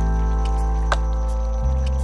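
Background music with held, sustained chords; the bass note changes about one and a half seconds in, and a light tick falls about a second in.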